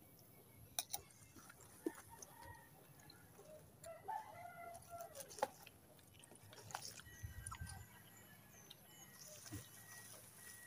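A rooster crowing once, faintly, about four seconds in, amid scattered faint clicks.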